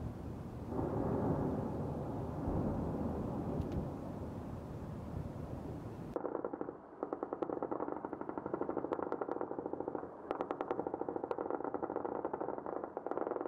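A rough, continuous rumbling noise, then, about six seconds in, long bursts of rapid automatic gunfire from air-defence machine guns firing tracer rounds into the night sky. The bursts repeat several times with short pauses between them.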